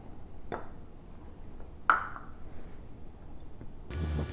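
A glass mixing bowl knocked lightly twice as flour is tipped in from a cup. The second knock, about two seconds in, rings briefly.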